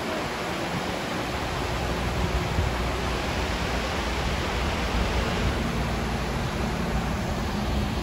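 Steady rushing of river water over rocky shoals, fed by a wide waterfall spilling over a dam: an even, unbroken noise.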